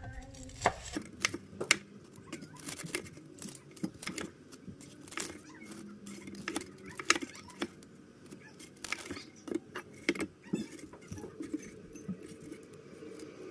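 Chef's knife cutting fried tofu and crisp fried wonton batagor on a plastic cutting board: irregular sharp taps of the blade striking the board.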